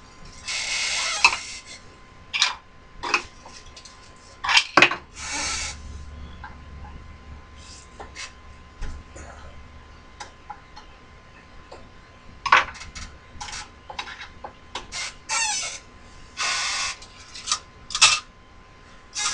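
Metal hand tools clinking and scraping against a metal workpiece: scattered sharp clicks, with a few short hissing rushes.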